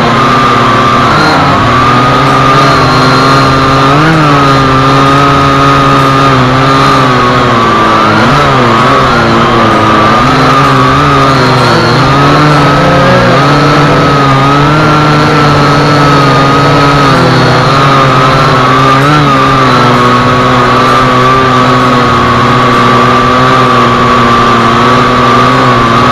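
Global Drone X183 quadcopter's motors and propellers whining steadily, heard close up through the drone's own camera microphone. The pitch wavers up and down as the flight controller adjusts motor speed in flight.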